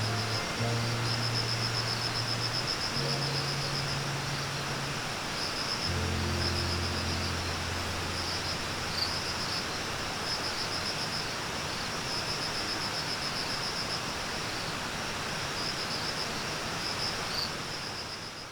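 Insects trilling in steady, repeating pulses over a constant hiss. Low held music notes sound for the first several seconds, and everything fades out at the end.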